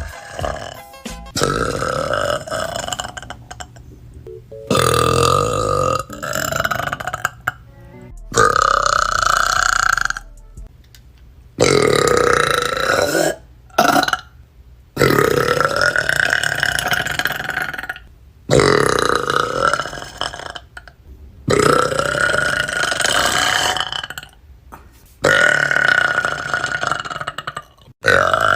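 Young women burping: about ten long, loud, drawn-out burps, one after another, each lasting one and a half to three seconds, with short breaks between.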